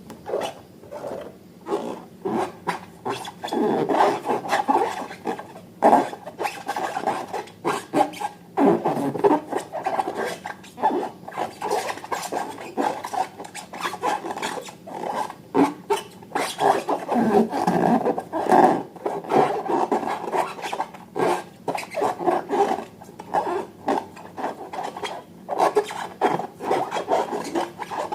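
Hands rubbing and squeezing rubber balloons and slime: a continuous rasping, rubbing noise with many small clicks and a few short squeaky sweeps.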